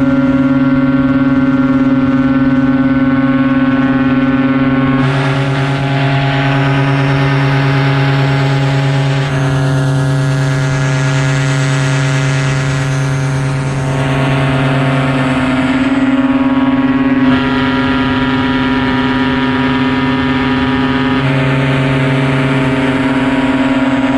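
Paramotor trike's engine and propeller running steadily in flight: a loud, even drone with a strong low hum. Its pitch and tone shift slightly a few times.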